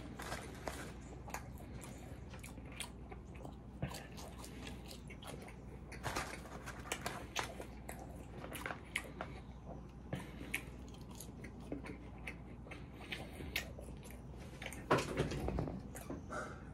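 A person chewing and biting french fries close to the microphone, with many small mouth clicks and smacks, getting louder and busier near the end.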